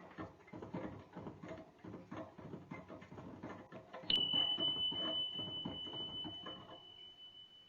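A small rodent gnawing: a quick, uneven run of short scraping crunches. About four seconds in, a steady high-pitched beep tone starts suddenly, louder than the gnawing, and slowly fades while the gnawing thins out.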